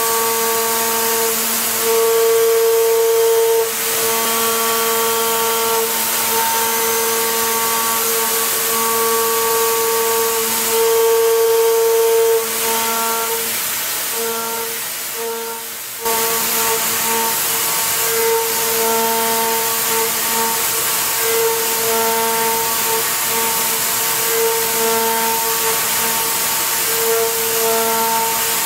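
CNC milling machine cutting metal: a steady high-pitched whine that holds one pitch, swelling and fading as the cutter's load changes, over a constant hiss. The sound sags and thins for a few seconds around the middle, then comes back abruptly.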